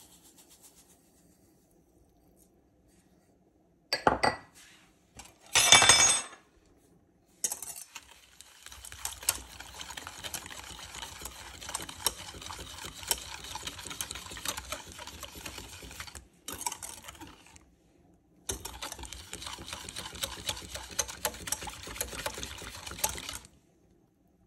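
Wire whisk beating sugar into melted butter in a stainless steel saucepan, its metal wires scraping and clinking against the pan in two long stretches with a short pause between. Two loud clatters come before the whisking starts, and the sugar pours in faintly at the very beginning.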